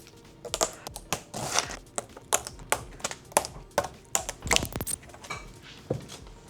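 Irregular clicks, taps and knocks from hand work on a bicycle, with tools and bike parts being handled, about a dozen in a few seconds and unevenly spaced.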